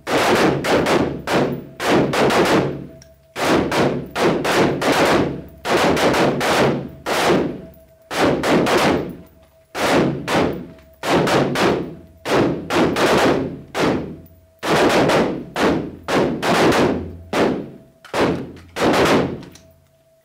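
Several AR-style carbines firing a slow, irregular string of shots, about one or two a second and sometimes overlapping. Each shot echoes off the walls of an indoor range.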